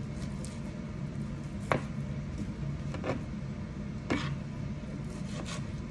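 A table knife cutting up tender cooked chicken on a plate, the blade clicking against the plate a few times, loudest a little under two seconds in, over a steady low hum.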